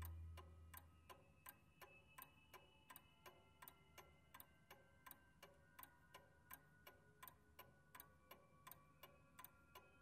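Faint ticking in a quiet stretch of a film score, about three ticks a second, over faint held high notes. Low musical tones fade out in the first half second.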